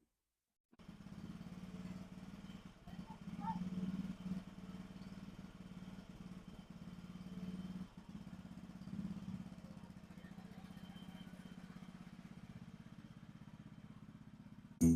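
Small engine of an old riding lawn mower running with a low, even drone, swelling slightly now and then; the owner says it acts like it's starving for fuel and the carburetor needs adjusting. Guitar music comes in loudly right at the end.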